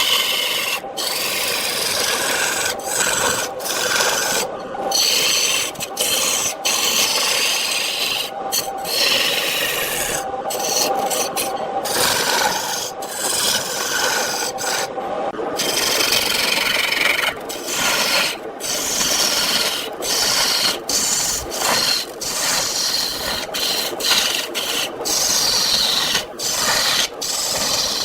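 Turning tool cutting into spinning wood on a wood lathe: a continuous scraping hiss, broken by brief gaps every few seconds as the tool comes off the wood, over a faint steady hum.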